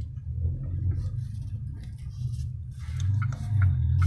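Chery Tiggo 7's Acteco engine running, heard inside the cabin as a low steady hum that grows louder about three seconds in. A few short high pips sound near the end.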